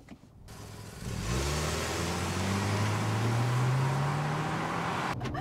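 2024 Mitsubishi Outlander gas model's 2.5-litre four-cylinder accelerating hard from a standstill through its CVT, starting about a second in. The engine drones, its pitch climbing slowly and evenly with no gear-change steps, as is typical of a CVT.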